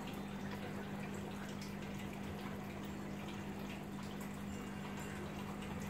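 Aquarium water circulating: water trickling and dripping over a steady low motor hum, typical of a running tank filter or pump.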